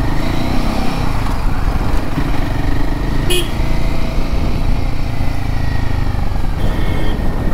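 Royal Enfield Himalayan 450's single-cylinder engine running as the bike crawls through dense city traffic, with a steady low rumble and a short horn beep about three seconds in.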